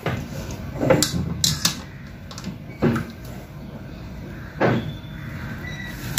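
Wooden spatula stirring thick cooked wheat-starch paste (kurdai batter) in a large metal pot, with several loud scrapes and knocks of the spatula against the pot, about one every second or two, over a steady low hum.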